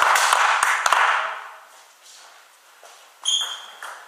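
Spectators applauding, dying away about a second and a half in. About three seconds in comes a single sharp, ringing click of a table tennis ball being struck.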